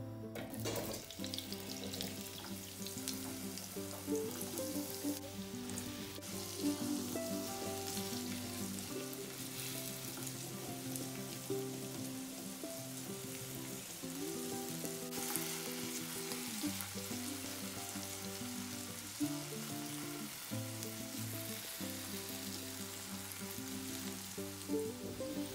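Cubed potatoes and carrot pieces sizzling steadily as they fry in oil in a nonstick frying pan, turned now and then with a silicone spatula. A melody of background music plays under it.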